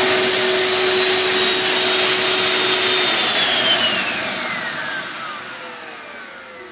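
Small Garrett T15 turbocharger spun by blown air: a loud rush of air with a high turbine whine. About three seconds in, a steady lower hum stops, and the whine then falls steadily in pitch as the turbo spins down, the rush fading with it, until the sound cuts off abruptly.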